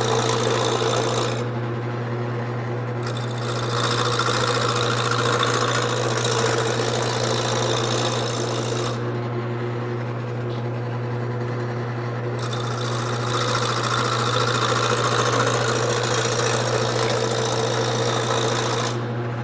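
Wood lathe motor running with a steady hum while a large gouge cuts the corners off a spinning square wood blank, giving a rough scraping noise. The cutting stops for a moment about a second and a half in, and again for about three seconds around the middle, while the lathe keeps running.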